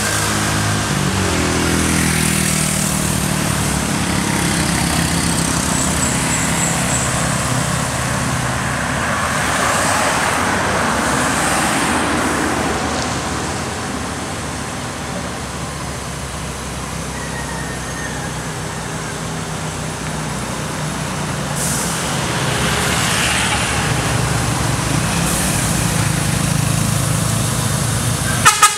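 A MAN TGS 40.400 tractor-trailer's diesel engine running as the truck approaches, its rumble building over the last several seconds, after a motor scooter passes early on with its engine note falling. A sudden loud sharp sound comes just before the end.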